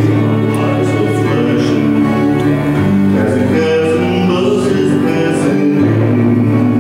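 Live acoustic band playing a song: strummed acoustic guitar, upright double bass, bowed fiddle and electric guitar. The bass line moves to a new note about every three seconds.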